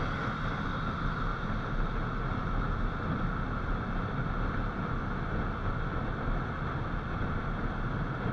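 Steady ride noise from a moving motorcycle: wind rushing over the microphone, mixed with engine and road noise, with no change in pace.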